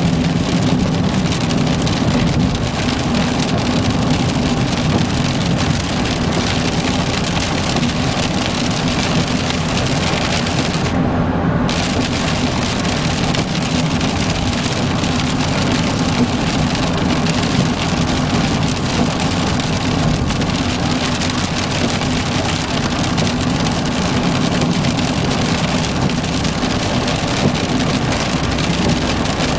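Heavy rain pelting a moving car, heard from inside the cabin, mixed with the hiss of tyres on a flooded highway and a steady low road drone. About eleven seconds in, the hiss briefly goes dull for half a second.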